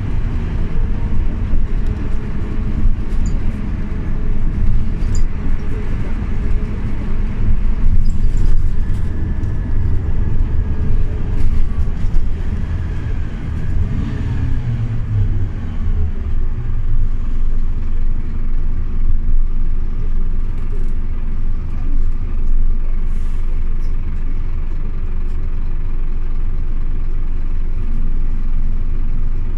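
Scania OmniLink city bus's diesel engine and road noise heard from inside the cabin, a steady low rumble. About halfway through, the engine note rises, grows louder and falls away, then settles to a steadier, slightly quieter drone.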